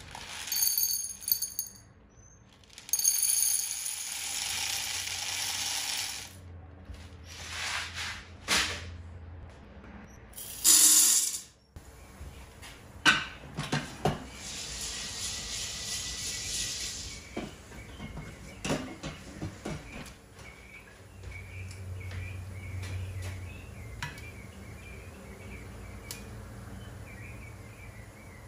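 Dried popcorn kernels poured into a stainless-steel Instant Pot insert, rattling against the metal in a few bursts over the first several seconds. Then a glass bowl is set down on the pot and shifted into place, with a loud clatter and a string of sharp clinks and taps.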